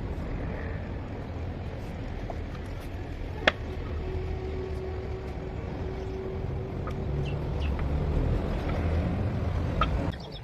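An engine running steadily with a low rumble, with a single sharp click about three and a half seconds in; the engine sound cuts off shortly before the end.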